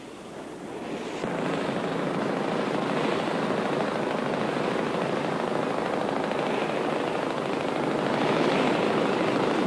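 Motorboat engine running steadily with water rushing past the hull, swelling over the first second or so and then holding even.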